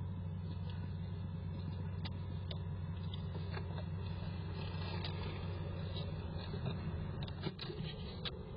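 Squirrel's claws scratching and clicking on the wooden walls and floor of a nest box as it shifts about and climbs. The clicks are scattered, with a cluster near the end, over a steady low hum.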